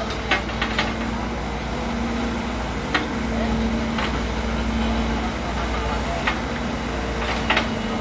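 Komatsu WB93R backhoe loader's diesel engine running steadily while the backhoe digs, with a few short, sharp clacks scattered through.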